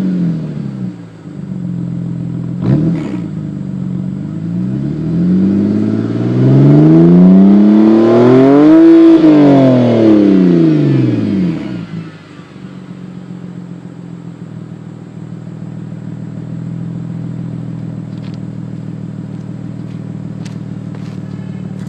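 BMW 128i's 3.0-litre inline-six revving through a Berk Technology axle-back race exhaust. The revs fall away at the start, with a single sharp crack about three seconds in, then climb slowly to a loud peak about nine seconds in and drop back to a steady idle about twelve seconds in.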